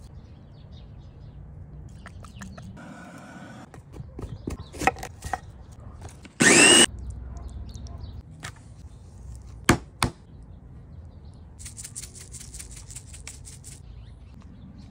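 Kitchen prep sounds: scattered clicks and knocks, then a small electric food chopper pulsed once for about half a second, its motor whining up in pitch, the loudest sound. Two sharp knocks follow a few seconds later, and a crinkly rustle near the end.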